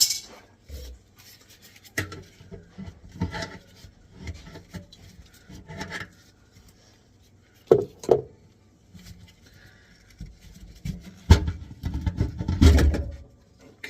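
Intermittent knocks, scrapes and rubbing from an old garbage disposal being worked loose from its sink mount, with a louder stretch of clattering and rubbing near the end.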